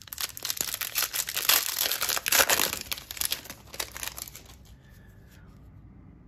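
Foil wrapper of a trading-card pack crinkling and tearing as it is ripped open. The crackle dies away about four seconds in as the cards come out of the pack.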